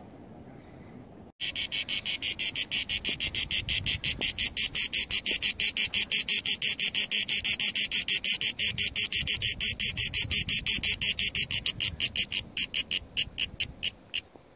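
A cicada singing, a fast, even train of buzzing pulses at about six or seven a second. It starts suddenly about a second and a half in, then near the end the pulses grow sparse and uneven before stopping.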